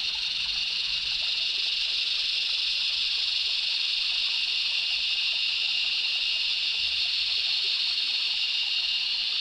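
Night insect chorus in bush, a steady high-pitched buzzing drone that runs without a break.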